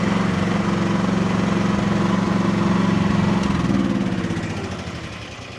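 Small excavator's diesel engine running steadily, then dying away over the last second or two.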